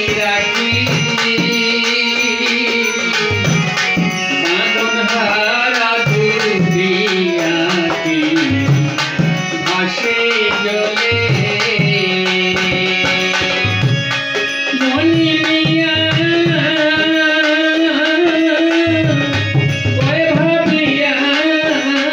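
Bengali Baul folk music played live on harmonium, violin and a two-headed barrel drum (dhol). The drum keeps up a brisk, even beat under sustained, sliding melody lines.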